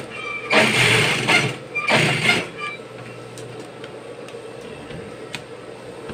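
JUKI industrial sewing machine stitching thick fabric in two short runs, then stopping. Its steady low hum continues, with a couple of sharp clicks as the fabric is handled.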